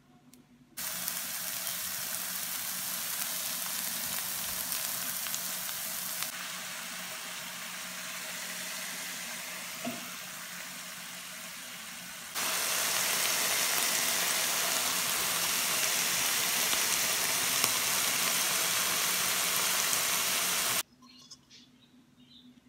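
Minced meat frying with diced red pepper and onion, a steady sizzle. It starts abruptly about a second in, jumps in loudness at two cuts, louder in the last stretch, and stops abruptly near the end.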